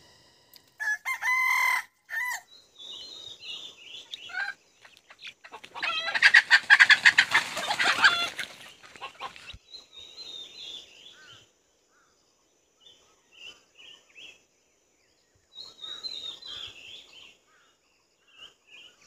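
A rooster crowing: a short call about a second in, then a long crow of about three seconds midway, with small birds chirping on and off.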